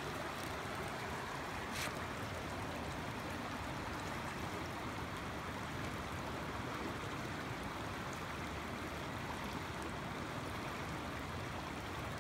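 Shallow creek water running and trickling over rocks in a steady rush, with one brief click about two seconds in.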